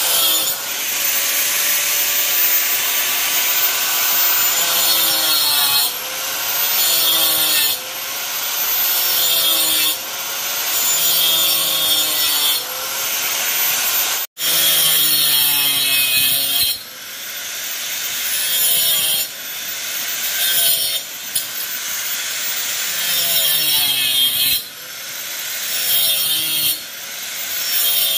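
Corded electric angle grinder cutting through small wooden battens in a string of short cuts, each a couple of seconds long: the motor's whine sags as the disc bites into the wood and climbs back up between cuts. A brief break about fourteen seconds in.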